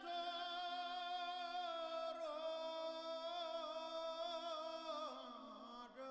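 Music: one long held note with a slight waver over a steady low drone, gliding down in pitch near the end.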